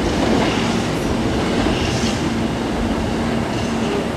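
Hankyu electric commuter train standing at a platform, humming steadily with a faint held low tone from its onboard equipment.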